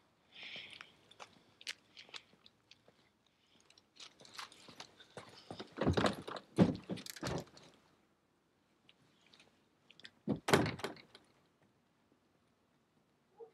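Scattered clicks and knocks, then a cluster of heavy thuds and rattles about six seconds in and another thud about ten and a half seconds in, typical of a car door being worked. The sound has a roomy echo.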